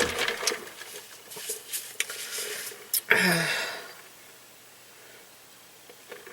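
Close-up mouth and eating noises: wet clicks and smacks of chewing, then about three seconds in a short burp with a falling pitch, followed by quiet room tone.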